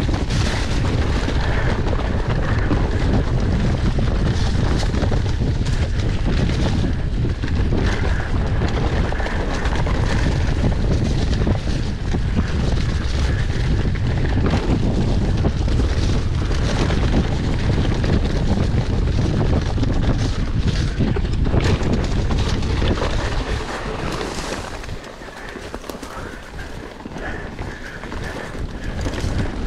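Wind buffeting the microphone of a camera on a mountain bike riding fast down a wet dirt trail, mixed with the rumble of the tyres and knocks and rattles from the bike over the ground. It quietens for a few seconds about 24 seconds in.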